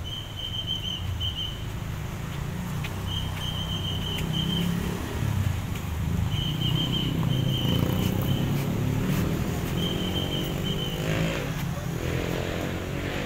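Road traffic with a steady low engine rumble. In the second half a vehicle engine rises in pitch as it accelerates. Short trains of high chirping sound four or five times over it.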